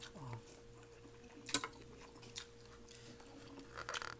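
Quiet eating sounds: soft chewing and small cutlery clicks, with one sharp clink of metal cutlery on a plate about a second and a half in. A faint steady hum runs underneath.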